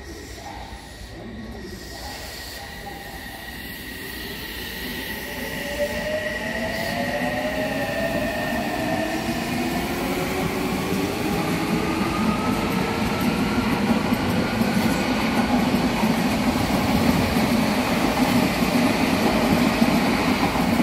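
Odakyu Line electric train running past, its traction motors whining in a pitch that rises steadily as it gathers speed. Under the whine the rumble of the wheels grows louder toward the end.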